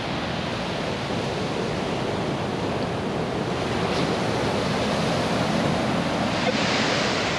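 Ocean surf breaking and washing up the beach, a steady rush that swells slightly near the end.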